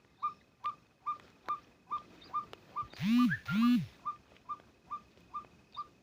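White-breasted waterhen calling: a short hooked note repeated evenly about two and a half times a second. About halfway through come two louder, deeper calls that each rise and fall.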